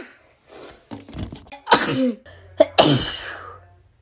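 A young woman sneezing several times in quick succession, with smaller sharp bursts and breathy intakes leading up to them. The last two sneezes are the loudest, about a second apart, each with a short falling voiced tail.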